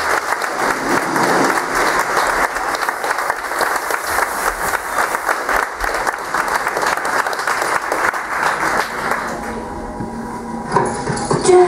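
Theatre audience applauding, a dense clapping that thins out about ten seconds in.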